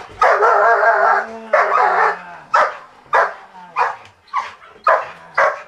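Dog barking loudly and repeatedly: a couple of longer runs of barking in the first two seconds, then short single barks about two a second.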